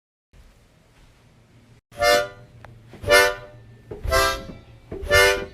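Short, loud, reedy tooting notes, four in a row about a second apart, each one steady in pitch and rich in overtones, after a faint hiss.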